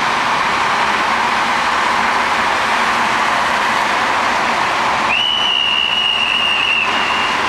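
Steady rush of road traffic from a busy intersection. About two-thirds of the way in, a traffic director's whistle gives one long, steady, high-pitched blast, followed near the end by a fainter one.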